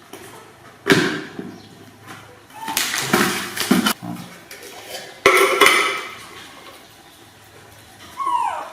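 Sharp knocks and clattering of handled objects, one about a second in and another just after five seconds, with rustling between; a short falling squeal near the end.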